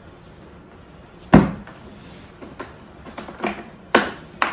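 Hard plastic carrying case of a cordless impact driver set being handled: one loud knock about a second in, then a few sharper clicks near the end.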